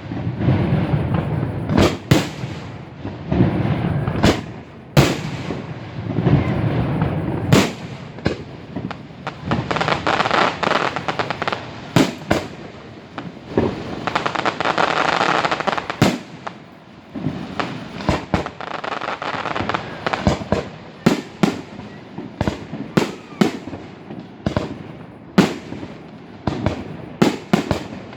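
Fireworks display: a rapid, irregular succession of sharp bangs and shell bursts, with low rumbling in the first few seconds and a stretch of dense hissing noise around the middle. Recorded on a mobile phone.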